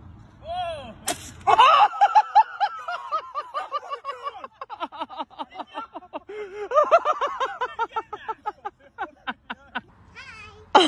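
A sharp crack about a second in, then people laughing hard: a long run of rapid ha-ha bursts that turns breathy near the end.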